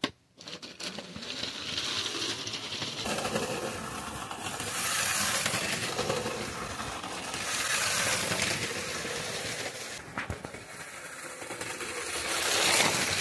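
Lego 9V train running along plastic track with metal rails: a continuous rattling clatter of wheels and motor that swells louder and fades several times as it passes, loudest near the end.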